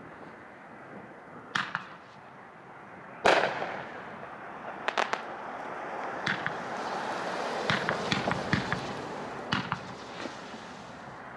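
Hot Shot 'Tongues of Fire' 500-gram, 23-shot firework cake firing: sharp shot reports, a double one and then the loudest about three seconds in, followed by a run of smaller cracks and pops over a hiss that builds toward the middle and fades near the end.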